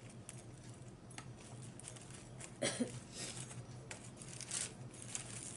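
Close-up eating sounds of someone chewing fried breaded shrimp and handling the food, with scattered small clicks and crackles. There is a brief low mouth or voice sound about two and a half seconds in.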